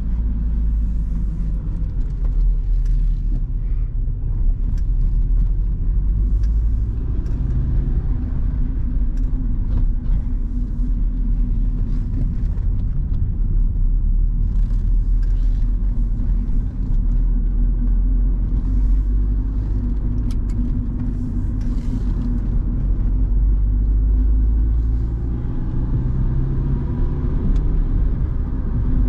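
1997 Honda Civic's 1.4-litre four-cylinder petrol engine running under way, heard from inside the cabin with road and tyre rumble. The engine note rises near the end as the car accelerates.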